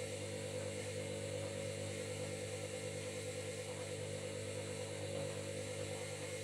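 Washing machine running: a steady mechanical hum with a higher whine above it, holding one pitch throughout.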